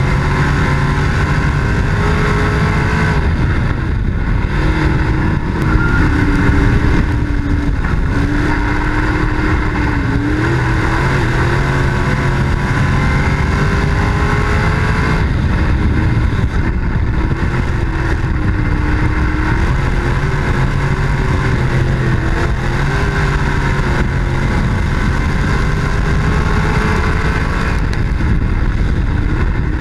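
Dirt track race car engine running hard, heard from on board the car. It is loud and continuous, its pitch rising and falling over and over as the driver gets on and off the throttle, over a steady low rumble.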